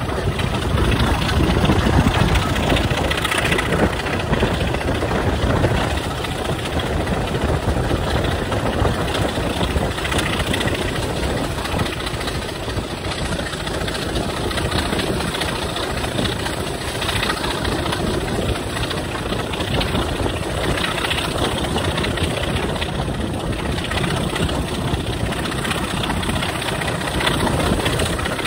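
Class 25 diesel locomotive D7659's Sulzer six-cylinder engine running steadily as it hauls the train, heard from a coach window along with the rumble of the coaches on the track.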